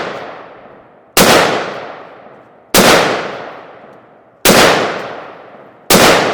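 Four single rifle shots from a 5.56 AR pistol, about a second and a half apart, each followed by a long rolling echo that dies away. None of the shots sets off the tannerite-loaded dryer they are aimed at, so no explosion follows.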